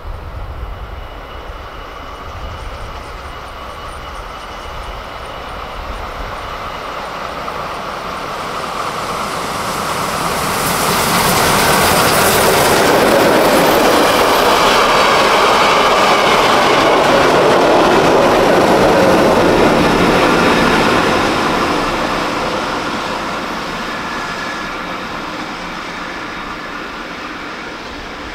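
DR class 50 steam locomotive 50 3648 and its train of passenger coaches passing at speed. The sound builds as the train approaches and is loudest about ten to twenty seconds in as the locomotive and then the coaches go by, with wheels clattering over the rail joints. It then fades steadily as the train draws away.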